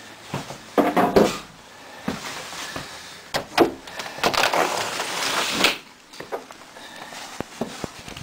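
A house window being worked open by hand: irregular knocks and clunks, with two longer scraping slides, one about a second in and the longest from about four to nearly six seconds in.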